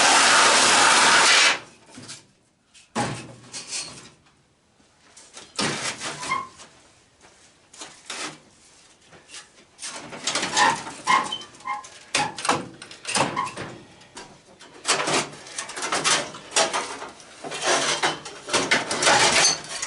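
A loud steady rushing noise cuts off suddenly about a second and a half in. It is followed by scattered metal clanks, rattles and scrapes, with a few short ringing pings, as parts of an old AC condenser unit are handled and pulled apart.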